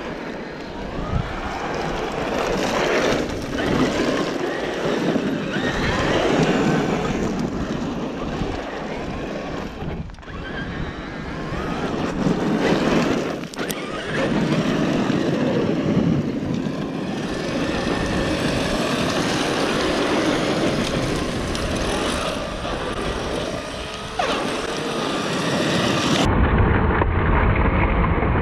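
Electric RC off-road trucks running flat out on loose dirt and stones: brushless motors whining up and down in pitch as they accelerate, with tyres spraying gravel. The sound turns duller near the end.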